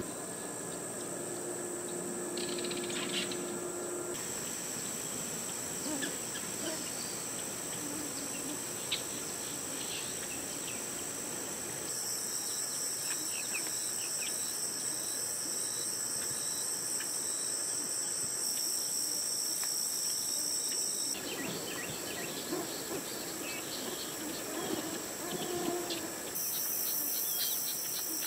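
A steady, high-pitched insect chorus of trilling or buzzing. Its pitch and loudness change abruptly a few times.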